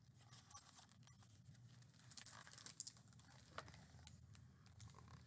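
Faint crinkling and rustling of a hardcover picture book being handled and opened, with scattered small crackles and soft taps that are busiest about two to three seconds in.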